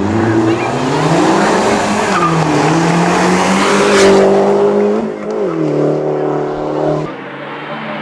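Mini Cooper race car engine revving hard out of a hairpin, its pitch climbing and dropping through gear changes, with tyres squealing; it is loudest about four seconds in as the car passes close. Near the end it gives way abruptly to a quieter engine of a second Mini approaching.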